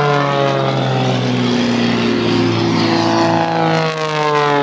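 Piston engines and propellers of small aerobatic display planes flying past, their pitch sliding down as they go by.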